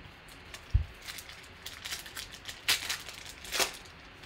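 A dull thump about a second in, then the foil wrapper of a Panini Optic basketball card pack crinkling and tearing as it is opened by hand, with its loudest crackles near the end.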